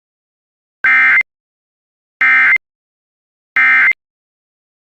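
Three short bursts of Emergency Alert System SAME digital data tones, each a harsh two-tone warble about half a second long with roughly a second of silence between. This is the end-of-message (NNNN) code that closes a Required Weekly Test.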